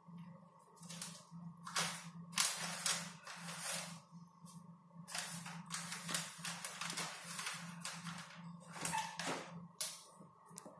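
Irregular scuffling and rustling bursts from cats wrestling on a concrete floor close to the microphone, over a steady low hum.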